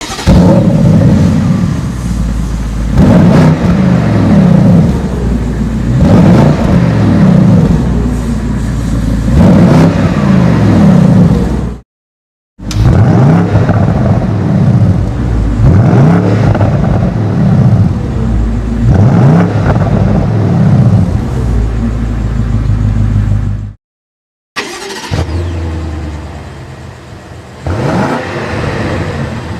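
AC Schnitzer-tuned BMW 550i V8 being revved again and again in short blips, its pitch rising and falling. There are two brief breaks of silence, and the last few seconds are quieter.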